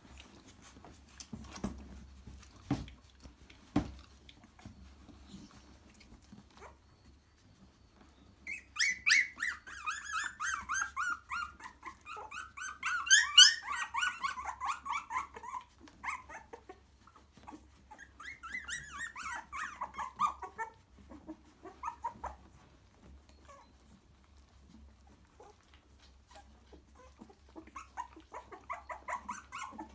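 Three-week-old cockapoo puppies crying in high, rapid squeals that fall in pitch. The cries come in three spells: from about 8 seconds in, again around 18 seconds, and near the end. A few soft knocks are heard in the first few seconds.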